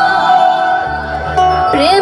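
Live band music with sustained keyboard notes over a bass line; near the end a voice slides up into a new held note.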